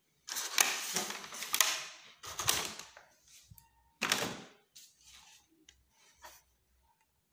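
Handling noise from a plastic toy RC helicopter being moved and set down on a tabletop: rustling with sharp clicks and knocks in three bursts, the last about four seconds in, then a few faint ticks.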